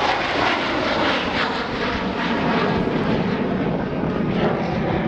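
Steady jet noise from a four-ship formation of USAF Thunderbirds F-16 fighters climbing away in a smoke-trailing diamond.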